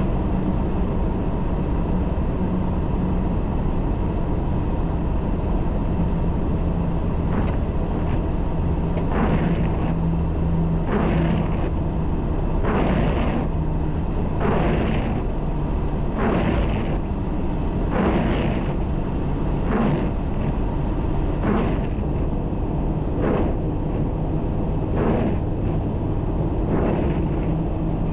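MAN truck's diesel engine running steadily on the road, with a short sound repeating about every two seconds from about a quarter of the way in.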